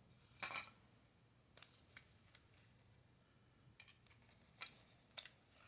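Faint, scattered clicks and light rustles of a small plastic toy package being handled: about eight short snaps over a few seconds, two of them slightly longer and scuffier.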